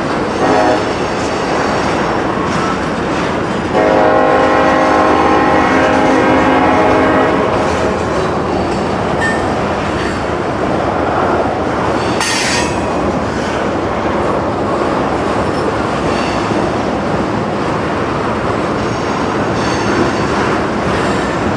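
Locomotive's Nathan K5LLA five-chime air horn giving a short toot, then a long chord of about three and a half seconds. The train then runs past with continuous wheel-and-rail rumble and clatter, and a brief high-pitched burst of noise about twelve seconds in.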